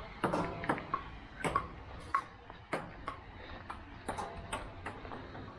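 Table tennis ball ticking off bats and an outdoor table tennis table in a rally, sharp pings at an uneven pace of about two a second.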